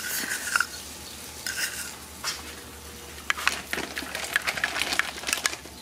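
Metal spoon stirring a buttery garlic-herb sauce in a bowl, clicking and scraping against the bowl, the clicks coming thick and fast in the second half. A few short scratchy rasps come in the first two seconds.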